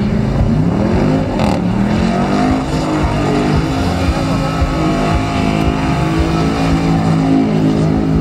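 Engine revving hard in a tyre-smoking burnout. The revs swing up and down over the first couple of seconds, then hold high and steady with the wheels spinning.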